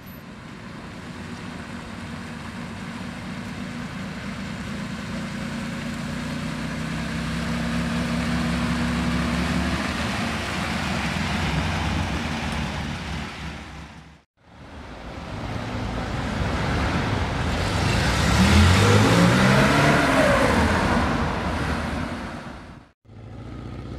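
Early Porsche 911 Targa's air-cooled flat-six engine running as the car moves off slowly, its note fairly steady at first. After a sharp break about two-thirds of the way in, the engine note rises and then falls as the car accelerates past, before the sound breaks off again near the end.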